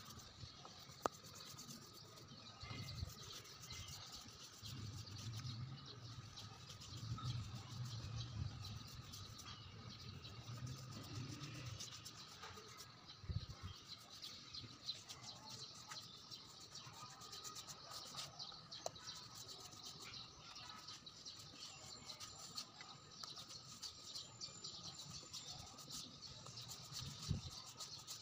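Faint birds chirping over a thin steady trill, with a low rumble in the first half and a few light knocks: about a second in, near the middle, and near the end.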